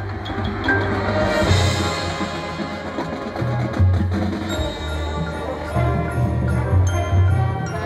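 High school marching band playing its field show, with bell-like mallet percussion from the front ensemble ringing over sustained low notes.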